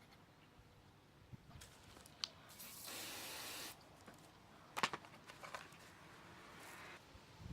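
A single short aerosol spray hissing for about a second, with a few faint clicks of handling before and after it.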